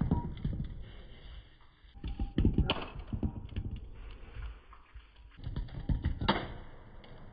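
Diecast metal model car crashing against a concrete block, heard slowed down as clusters of low knocks and rattles. One is dying away at the start, another comes about two and a half seconds in, and a third near six seconds.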